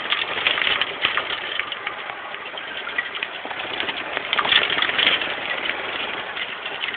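Golf cart driven flat out over a bumpy dirt track: a steady engine noise under constant rattling and knocking as the cart jolts over the ruts.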